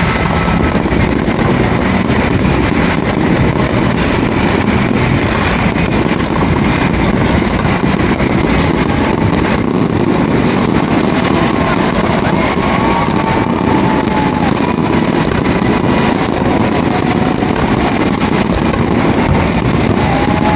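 Strings of firecrackers crackling continuously in a dense, steady rattle of small pops.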